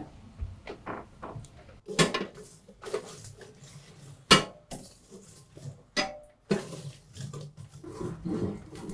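Sharp metal clanks and clattering of lump charcoal being stirred with a metal poker in a charcoal grill, with several loud knocks at irregular intervals. Near the end a brush scrapes over the grill grate.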